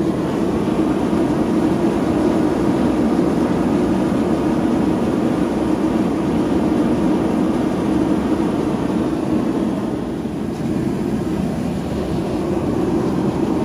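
Propane ribbon-burner gas forge running flat out, its three burners and combustion-air blower making a steady rushing noise. The forge is at working heat, about 1600 degrees.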